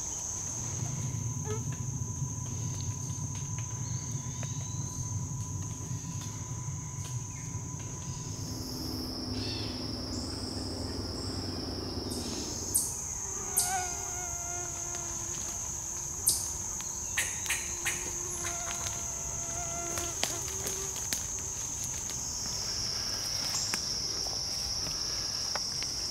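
Insects droning steadily in summer woods: a high-pitched drone that drops in pitch about a third of the way in, climbs back, and drops again near the end. A scatter of sharp clicks and a few short calls come through the middle, and a low rumble sits under the first third.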